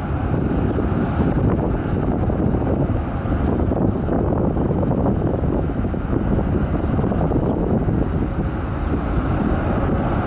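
Steady jet-engine rumble from a Boeing 787-8 slowing on the runway after landing, mixed with wind on the microphone.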